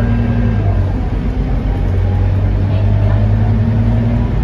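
Scania K230UB city bus under way, heard from inside the passenger saloon: its diesel engine, a five-cylinder Scania 9-litre, drones steadily under road and tyre noise.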